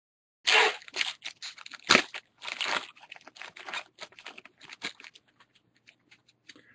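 Trading-card pack wrapper crinkling and tearing open by hand, with a sharp rip about two seconds in, then sparser rustles and light snaps of a stack of cards being handled.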